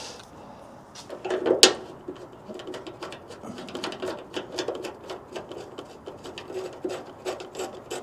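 Quick irregular clicking and small metallic knocks of hand work on mounting hardware, with one louder clatter about one and a half seconds in.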